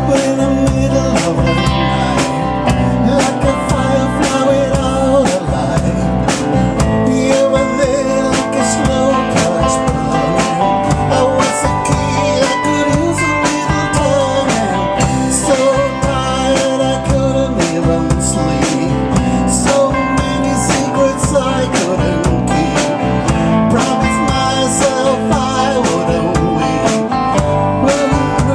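A live band playing a rock song on electric bass, electric and acoustic guitars and drums, with a man singing lead.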